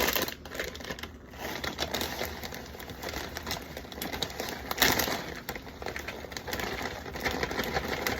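Plastic bags of shredded cheese crinkling and rustling as they are handled and combined, with a louder rustle about five seconds in.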